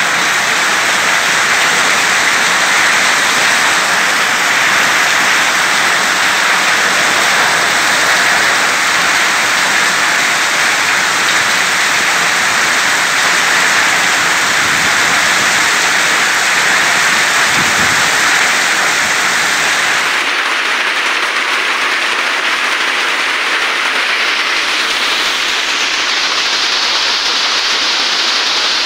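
Heavy hailstorm: hailstones and rain pelting the ground in a steady, dense rush of noise. About two-thirds of the way through the sound changes and the low rumble drops away.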